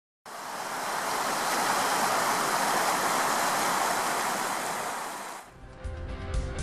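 Shallow stream running over a stony bed: a steady rushing of water that fades in at the start and cuts off sharply about five seconds in, when plucked guitar music begins.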